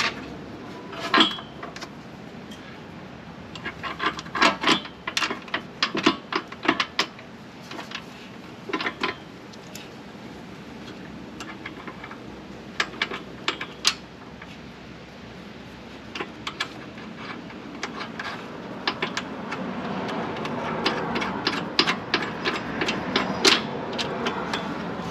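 Irregular small clicks and knocks, some in quick runs, as hands handle hitch parts and fasteners up under the rear of a car, over a steady background hiss.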